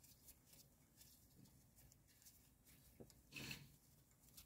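Near silence, with faint rubbing and handling noises from gloved hands working at a brake caliper, and a soft rustle about three and a half seconds in.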